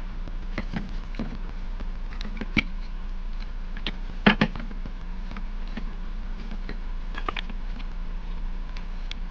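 Scattered light clicks and knocks of objects being handled, with a louder double knock about four seconds in, over a steady low hum.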